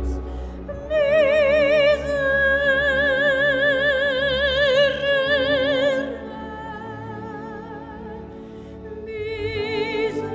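Slow classical music: a high melody line holds long notes with wide vibrato over a sustained low accompaniment. It is loudest from about one second in, turns softer after about six seconds, and swells again near the end.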